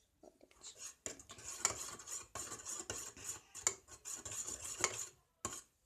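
A spoon stirring clear glue slime in a bowl with clinks and scrapes as borax water thickens it. The stirring stops about five seconds in.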